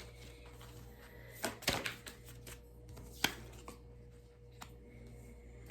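Tarot cards being handled and laid down on a table: a few scattered light clicks and taps, the loudest a short cluster about a second and a half in and a single sharp tap around three seconds in, over a faint steady hum.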